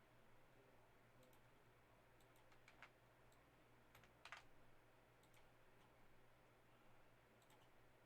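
Near silence: faint room tone with scattered light clicks and two brief soft rustles, about three and four seconds in.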